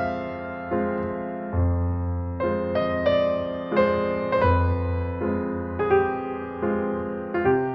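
Slow, gentle piano music: single notes and chords struck about once a second over held low bass notes.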